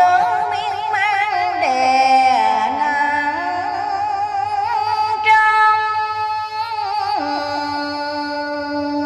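Karaoke backing music in an instrumental passage between sung lines: a melody with vibrato over sustained chords that change a few times.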